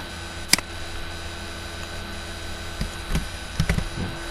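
Scattered clicks from a computer mouse and keyboard: one sharp click about half a second in, then a quick run of smaller clicks past the middle, over a steady electrical hum.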